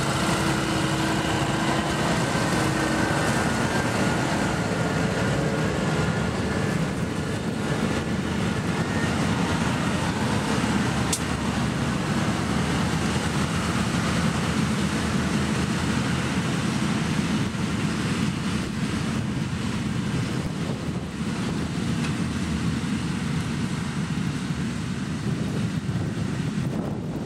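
Farm tractors' diesel engines running steadily under load as they pull cultivation and drilling implements across a field. A pitched engine note is clearest in the first few seconds, then settles into an even drone.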